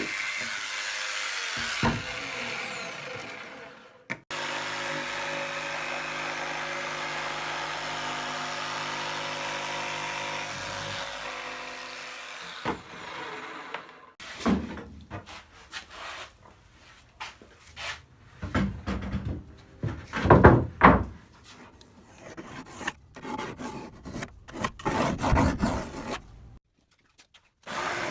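Woodworking power tool running steadily, then several short bursts and knocks of tool work on wood.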